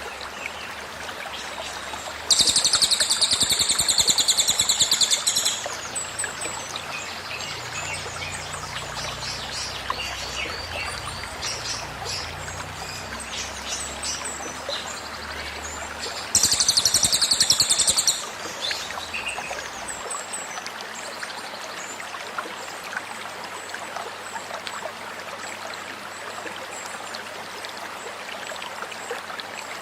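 Cililin bird singing its rapid, high 'tembakan' song in two loud bursts, one of about three seconds and one of about a second and a half, with a few softer chirps between, over a steady flowing stream.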